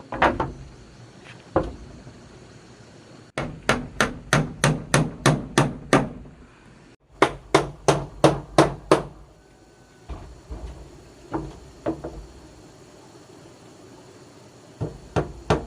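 Hammer blows, struck in quick runs of about four a second with a few single strikes and pauses between the runs.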